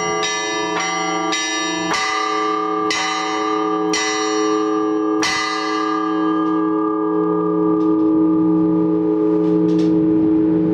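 Orthodox church bells rung for the all-night vigil: a run of strikes that come further and further apart and stop about five seconds in, then the bells keep sounding as they ring out.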